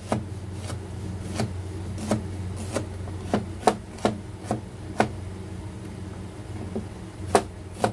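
Cleaver-style kitchen knife slicing shallots on a plastic cutting board: about fifteen sharp chops at an uneven pace, with a pause a little past halfway before the chopping resumes near the end.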